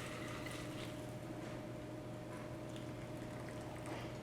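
Faint, steady trickle of the shaken cocktail being poured from the shaker into a cocktail glass, over a steady low electrical hum.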